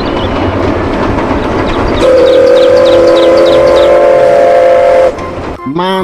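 Steam locomotive running with a steady rush of noise, then about two seconds in sounding one long steam-whistle blast of several steady tones that stops about five seconds in.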